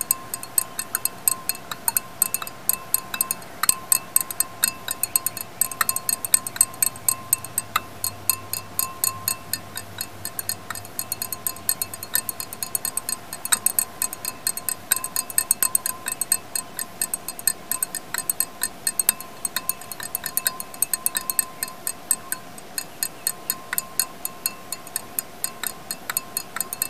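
Glass stirring rod clinking against the inside of a glass beaker as the solution is stirred, rapid sharp clinks several a second, over a faint steady tone.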